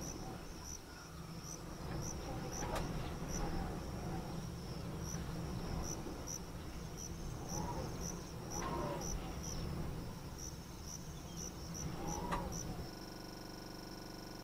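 Insects chirping in a steady, even rhythm of about two pulses a second, with a few short calls now and then. Near the end the chirping cuts off abruptly and gives way to a steady hum.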